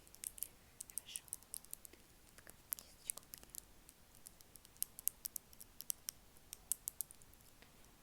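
ASMR mouth sounds: quick, irregular wet clicks and pops, several a second.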